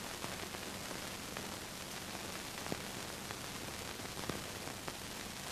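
Steady hiss of an old film soundtrack, with a few faint clicks.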